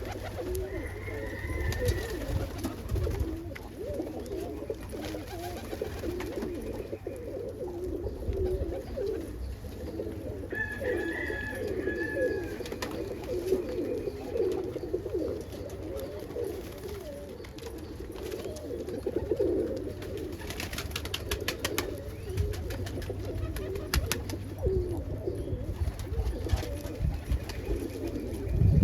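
A loft full of domestic pigeons cooing continuously, many birds overlapping into a steady low chorus.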